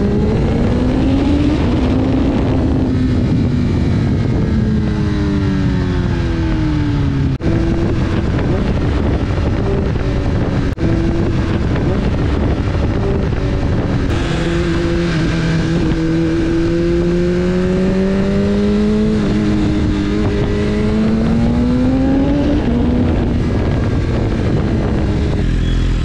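Sport motorcycle engine running loud, its pitch rising and falling slowly as the revs climb and drop. The sound breaks off briefly twice.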